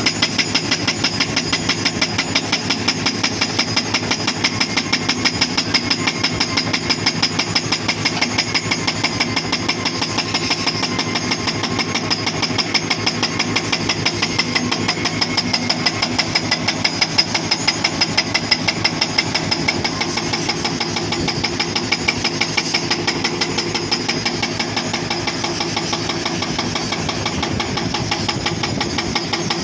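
Hydraulic breaker on a Hitachi Zaxis 240 excavator pounding rock in rapid, even blows, with the excavator's engine running under it.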